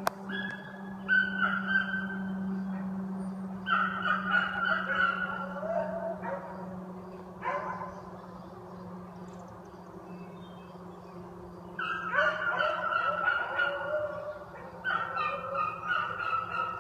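Beagles baying while running a trail: bursts of overlapping hound calls in several groups, with quieter pauses between them, over a steady low hum.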